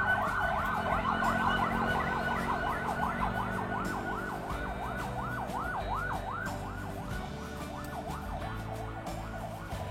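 Siren-like warbling tone sweeping rapidly up and down, the sweeps slowing and growing fainter toward the end.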